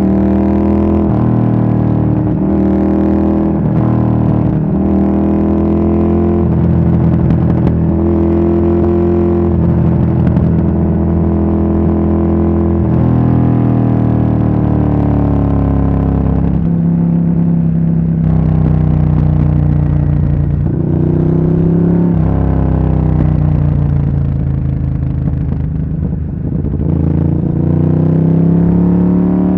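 Ducati Monster S4R's L-twin engine and exhaust under way, revving up through the gears several times in quick succession, the pitch climbing and then dropping back at each shift. About halfway through it settles into a steadier run with a few short pulls.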